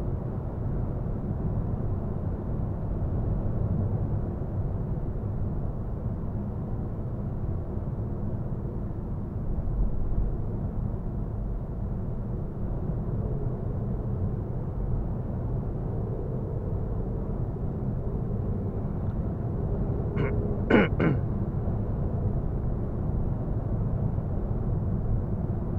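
In-cabin noise of a Citroën Berlingo BlueHDi 130 diesel van driving at motorway speed: a steady low drone of engine and tyres. About twenty seconds in, one brief sound slides steeply down in pitch, like a quack.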